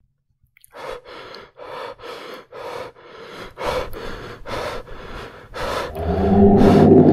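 Quick, repeated gasping breaths, about two to three a second, after a short silence. Near the end, louder music with low held tones comes in over them.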